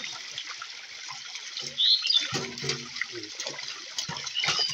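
Pond water splashing and sloshing as a fishing net is hauled through it, with many small, quick splashes.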